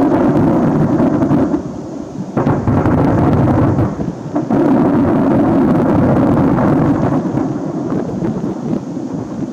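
A starmine barrage of Japanese aerial fireworks shells bursting in quick succession: a continuous rolling rumble of booms with crackling on top, easing briefly about two seconds in and again about four seconds in.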